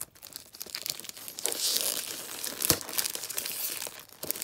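Tissue paper and honeycomb paper wrapping rustling and crinkling as hands handle a perfume box in its packaging, with a sharp click about two-thirds of the way through.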